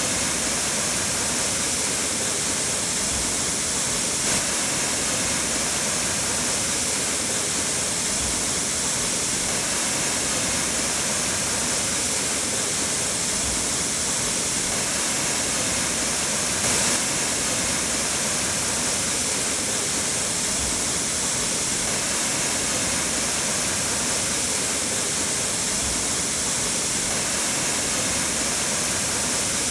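Waterfall rushing: a steady, loud hiss of falling water with no change.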